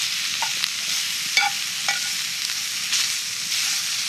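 Cut-up sausages sizzling steadily in a hot cast iron skillet over a campfire, with a few short sharp clicks.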